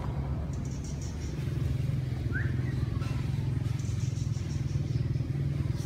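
Steady low rumble of a motor vehicle engine running, with a couple of faint, short, high chirps about two seconds in.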